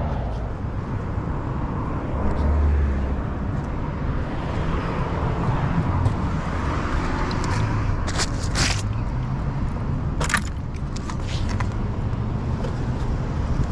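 Road traffic passing close by, a steady rumble of car engines and tyres, with a few sharp clicks around eight and ten seconds in.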